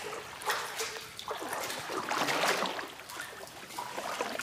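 Paper pulp slurry sloshing and washing across the screen of a rope-suspended washi papermaking frame as it is rocked, in several swishes, the loudest about two seconds in.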